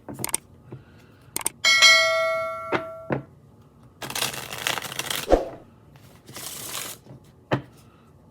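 Clicks and knocks, then a small metal bell or chime struck once, ringing and fading over about a second. Tarot cards are then shuffled in two rustling bursts, with a knock near the end.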